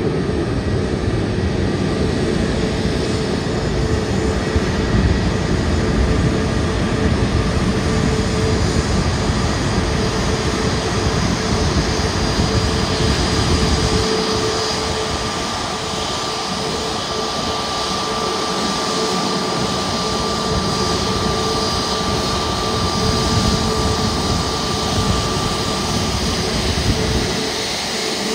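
Jet aircraft turbine noise: a steady whine over a broad rush, the deep rumble underneath easing off about halfway through.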